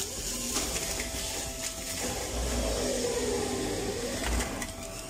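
Electric centrifugal juicer running as apple and ginger pieces are pushed down its feed chute. The motor's whine sags in pitch in the middle, as the fruit loads it, and climbs back again, with a few small clicks of pieces hitting the spinning basket.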